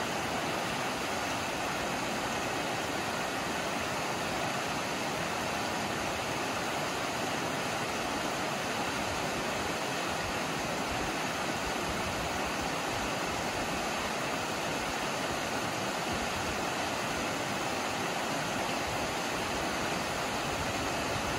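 Small rocky creek rushing downhill over stones: a steady, even rush of water.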